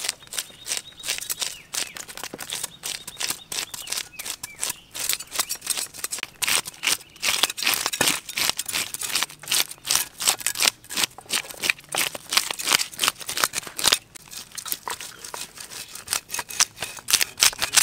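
Fish scales being scraped off whole fish with a yellow scaler and a cleaver blade against wooden chopping blocks: rapid rasping strokes, several a second, scales flicking off.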